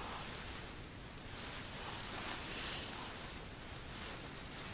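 Steady wind noise on the microphone: a low, fluctuating rumble under an even hiss.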